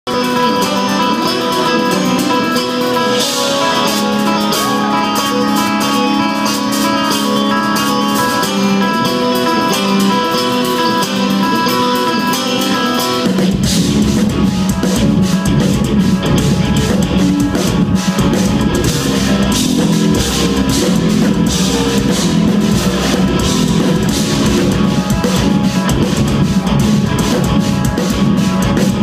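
Instrumental progressive metal played live by a trio of two eight-string guitars and a drum kit. It opens with clean, ringing guitar lines, and about halfway through the drums and heavy, low guitar come in with the full band.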